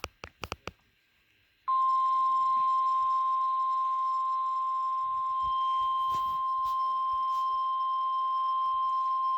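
NOAA Weather Radio 1050 Hz warning alert tone: a single steady, loud beep that starts about two seconds in and holds without change. It is the attention signal ahead of a severe thunderstorm warning. A few sharp clicks come right at the start.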